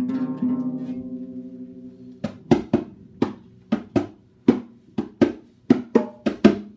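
An acoustic guitar chord rings out and fades over the first two seconds. Then hand-played bongos come in with sharp slaps in a quick, uneven rhythm, about three a second.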